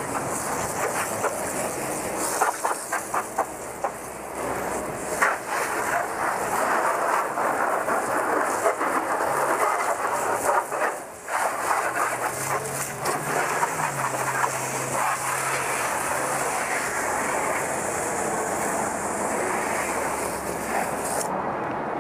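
Pressure-washer spray of water hitting a car's soft top and painted bodywork, a steady hiss with several short breaks between about two and four seconds in and one around eleven seconds in. The spray stops just before the end.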